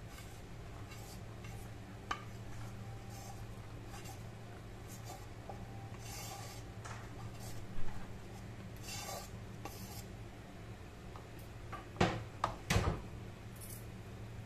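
Wooden spatula and fingers scraping and rubbing chicken filling out of a pan and spreading it over a chapati, in short scattered scrapes. Two sharp knocks near the end are the loudest sounds. A steady low hum runs underneath.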